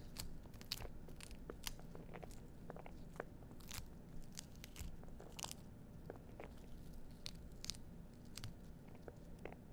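A pomegranate being pulled apart by hand, the arils snapping loose from the pith and membrane in irregular small crunching, crackling clicks over a faint steady low hum.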